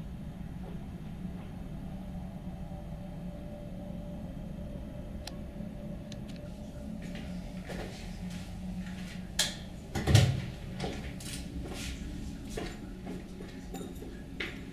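Steady low hum, then from about eight seconds in a run of clicks and knocks from a wooden interior door's handle, key-hung lock and latch as the door is opened, the loudest a low thump about ten seconds in.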